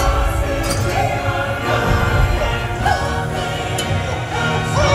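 Dark-ride soundtrack music: a choir-like group of voices singing over a full musical backing.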